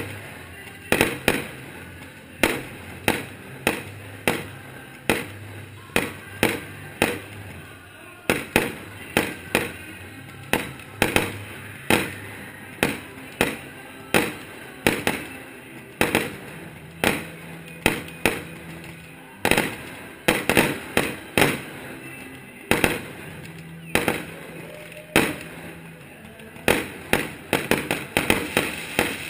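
Aerial firework shells launching and bursting in a steady string of sharp bangs, about one or two a second, coming thicker and faster near the end.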